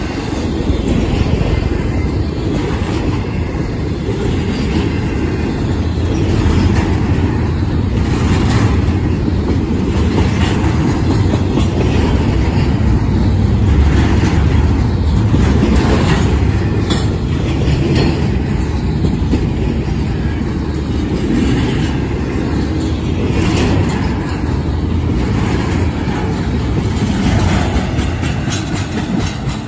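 CSX intermodal freight train of trailers and containers passing close by at speed: a steady, loud rumble of wheels on rail, with repeated clicks as the wheels cross rail joints.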